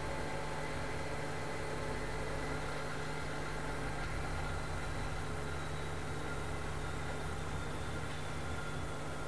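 Steady hum of running machinery: many held tones over a low drone, unchanging throughout, with no distinct clicks or air bursts.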